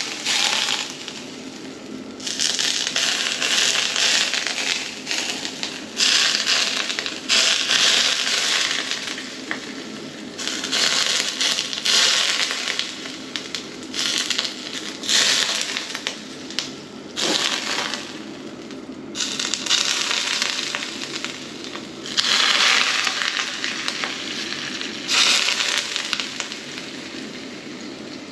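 Very hot oil poured over a whole coral trout in soy sauce and chili, sizzling loudly in repeated surges of a second or two as each pour hits, dropping back to a low sizzle between pours. The oil is searing and crisping the fish's skin.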